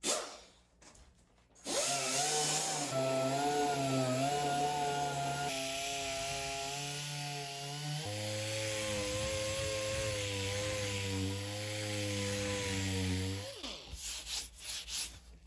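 A Dremel rotary tool grinding into the board's foam and fiberglass around the fin box, its motor whine wavering in pitch under load and dropping lower about halfway through, then spinning down and stopping near the end. A brief burst of noise comes at the very start.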